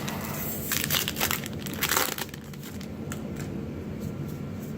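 Foil Magic: The Gathering booster-pack wrapper crinkling as the pack is opened, loudest in the first two seconds, then quieter rustling with a few small ticks.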